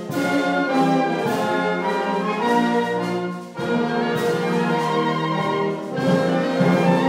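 Wind band of brass and woodwinds playing sustained full chords, with a brief drop between phrases about halfway through before the band comes back in.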